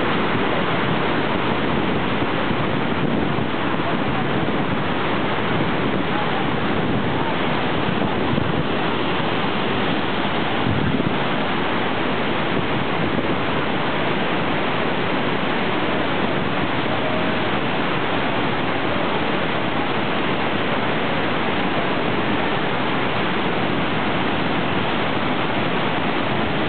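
Iguazu Falls at the Devil's Throat, a huge volume of muddy floodwater plunging over the cliffs, making a loud, unbroken rush of falling water that holds steady throughout.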